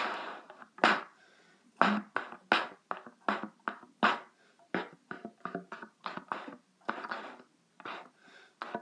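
Cornet played in a run of short, separate notes, about two or three a second with brief gaps between them.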